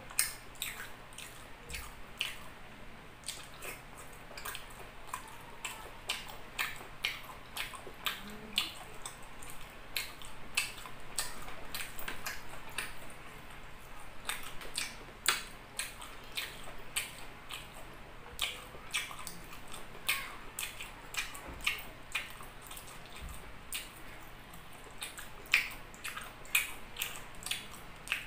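Chewing and lip-smacking of a person eating chicken liver adobo and rice by hand: a run of sharp, wet mouth clicks, several a second.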